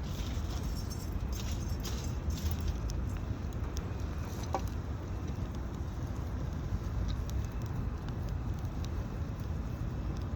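Scattered crackles and ticks, thickest in the first few seconds, typical of a wood campfire, over a steady low wind rumble on the microphone, with one brief rising squeak about four and a half seconds in.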